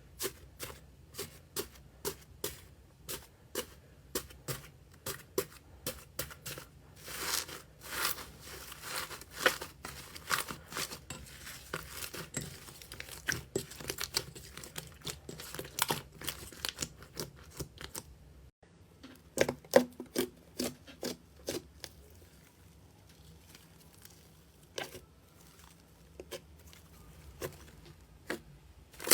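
Slime being squeezed and stretched by hand, giving irregular sticky pops and crackles several times a second; the pops thin out after a change of clip about two thirds of the way in.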